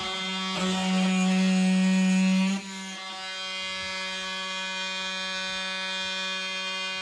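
Small cordless Milwaukee power tool motor running with a steady whine. It gets louder for about two seconds near the start, then drops back to a lower steady run.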